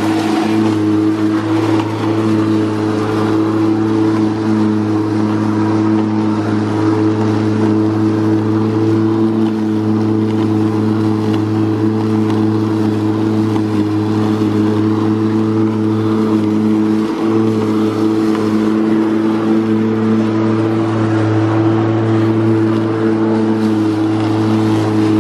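Makita DLM382 cordless lawn mower running steadily as it is pushed across grass: a constant-pitch hum from the motor and blade over the rush of grass being cut.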